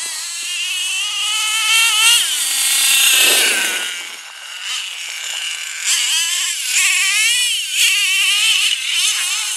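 HPI F4.6 nitro engine of a radio-controlled monster truck revving up and down under throttle as the truck drives, its high-pitched whine rising and falling; loudest about two to three seconds in.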